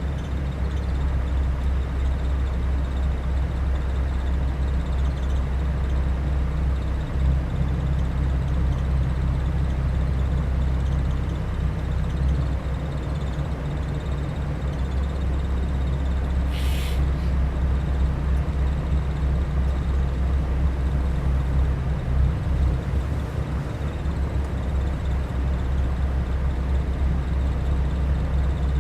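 Diesel engine of a Mercedes-Benz O500 RSD coach chassis running steadily with a deep, even rumble. A short hiss sounds once about two-thirds of the way through.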